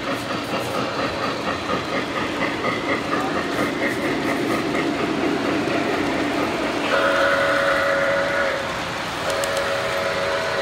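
Model steam locomotive's sound system running with a fast rhythmic chuff, then sounding its whistle: a long blast about seven seconds in and a second, shorter one near the end, each a chord of several tones.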